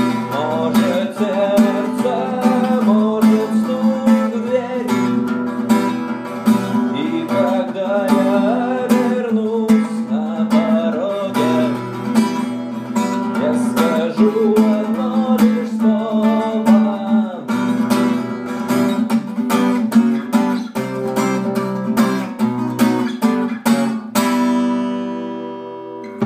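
Acoustic guitar strumming chords under a wavering melody line, ending on a final chord that rings out and then stops.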